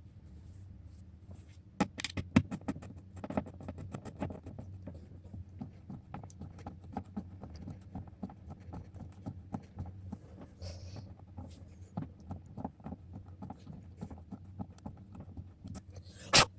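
Irregular small clicks, taps and scratches of a phone and small tools being handled on a bench, over a steady low hum, with one loud knock near the end.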